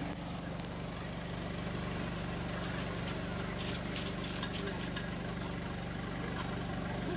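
An engine idling steadily with a low hum, over an even wash of noise, with a few faint clicks in the middle.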